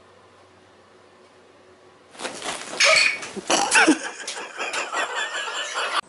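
A cat hissing and yowling in alarm, bursting out suddenly about two seconds in and cut off abruptly near the end.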